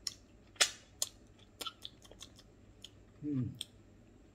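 A person chewing a mouthful of food with a series of sharp, wet mouth clicks and smacks, the loudest about half a second in, and a short falling "mm" hum about three seconds in.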